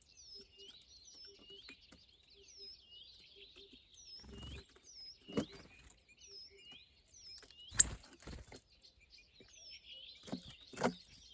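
Small birds chirping, one short call repeated about twice a second, with several sharp taps and knocks in between, the loudest about eight seconds in.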